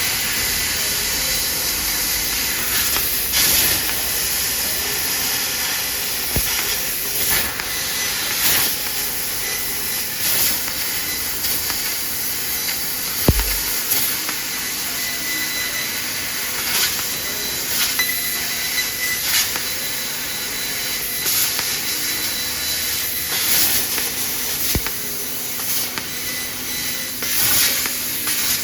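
3000 W CNC laser cutting machine at work on sheet metal: a steady hiss from the cutting head's assist gas, surging briefly every second or two, with a faint high whine coming and going. A single low thump about 13 seconds in.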